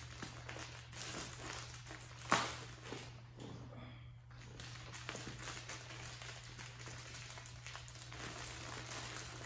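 Plastic poly mailer bag rustling and crinkling as it is handled and pulled open, with one sharp snap about two seconds in.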